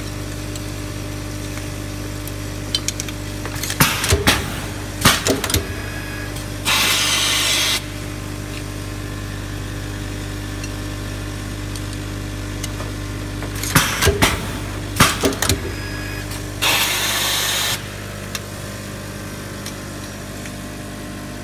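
Automatic riveting machine running with a steady motor hum. Twice it goes through a cycle: a quick series of clicks and knocks, then about a second later a hiss lasting about a second.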